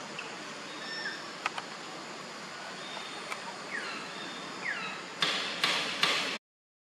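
Common hill mynas calling: scattered short whistled notes and two clear whistles sliding downward, over a steady background hiss. About five seconds in come three loud, harsh, noisy bursts, and then the sound cuts out suddenly.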